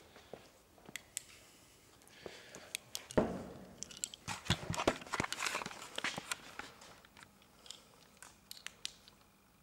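Close rustling and crunching with many scattered sharp clicks and knocks, densest in the middle few seconds.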